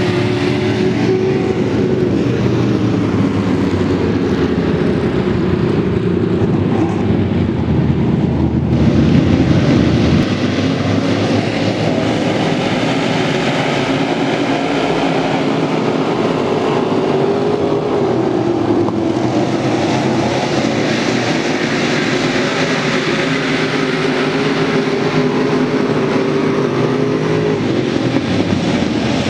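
Dirt late model race cars' V8 engines running hard as a pack laps a dirt oval. The engine pitch rises and falls as the cars pass and lift for the turns. The sound shifts abruptly twice.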